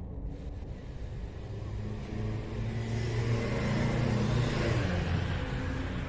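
A motor vehicle passing by: its engine and road noise swell to a peak about four seconds in, then fade.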